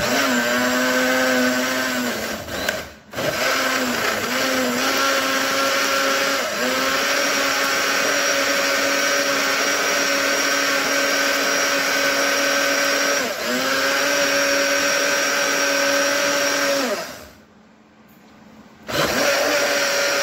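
Small personal blender's motor running under load, blending coriander, green chillies and ginger with water into a liquid. It runs in three goes, cutting out briefly about three seconds in and for a second or two near the end, and its whine dips in pitch now and then.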